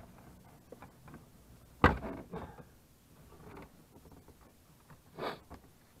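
Hands working on a car's steering column and its plastic trim: a sharp knock about two seconds in, a few small clicks, and a short, softer rustle near the end.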